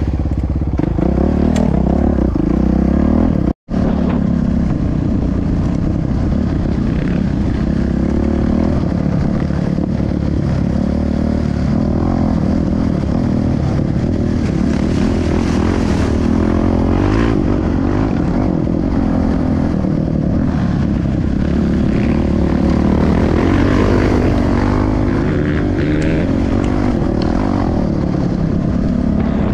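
Off-road trail motorcycle engine running steadily under way, its revs wavering as it rides, with a momentary dropout about three and a half seconds in.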